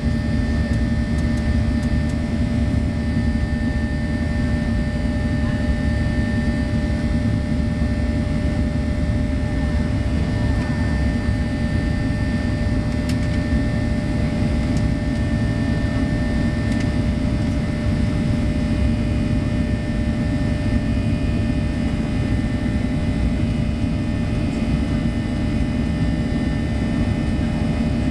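Cabin noise of a Boeing 737-800's CFM56-7B turbofan engines during the climb after takeoff, heard inside the cabin: steady, with a low hum and a thin high tone that fades out about two-thirds of the way through.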